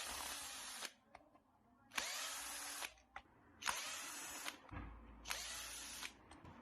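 A small cordless power driver running in four short bursts, each just under a second long, backing out screws to take apart a hammer drill.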